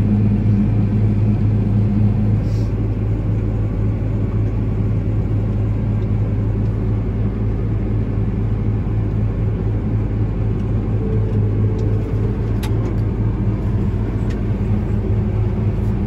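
New Holland CR9070 combine harvester running steadily while unloading grain through its unloading auger, heard from inside the cab as a loud, even, low hum.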